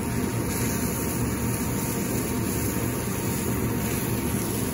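Steady low rushing noise of a commercial kitchen, with gas burners lit and onions cooking in a pan; no single event stands out.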